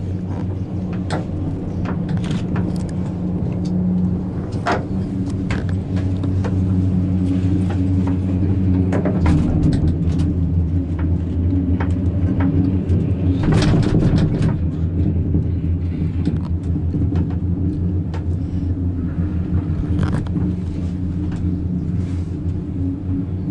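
Steady low rumble and hum of a gondola cable car cabin riding along its cable, heard from inside the cabin, with scattered clicks and knocks. The rumble swells briefly twice around the middle.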